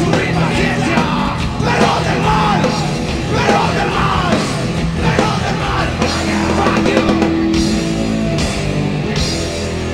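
Heavy metal band playing live: distorted guitars and a drum kit, with shouted, yelled vocals over the first few seconds, then held guitar notes from about six seconds in.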